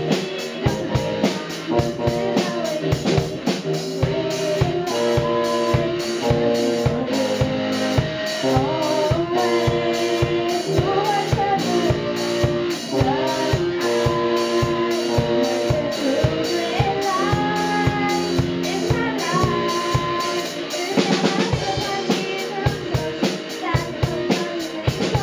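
Small live band playing a pop song: a drum kit keeping a steady beat under bass, electric guitar and a young woman's lead vocal. About 21 seconds in there is a burst of cymbals.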